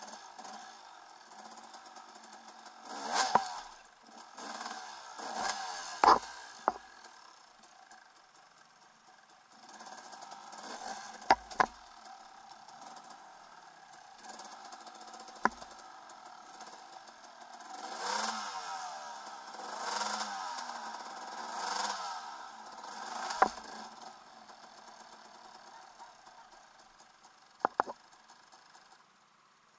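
Single-cylinder two-stroke KTM 300 EXC enduro engine running at low speed, blipped up in short bursts of revs several times as the bike picks its way over logs and branches. Several sharp knocks and clatters stand out among the engine sound.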